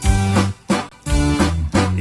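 Instrumental passage of an upbeat Swedish sailor song: guitar chords over a bouncing bass with a steady beat.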